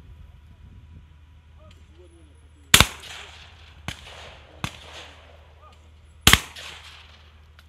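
Shotgun shots at clay targets: two loud blasts about three and a half seconds apart, with two fainter shots between them, each trailing off with an echo.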